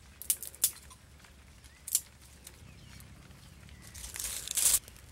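Dry twigs and leaves being handled while a fire is laid under a bamboo tube: a few sharp snaps in the first two seconds, then a louder crackling rustle near the end.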